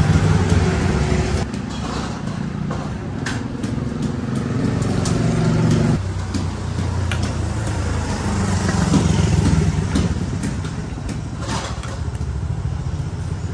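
Motorbike engines running in the street, a steady low drone that shifts in level a couple of times, with a few light clinks of a spoon on dishes.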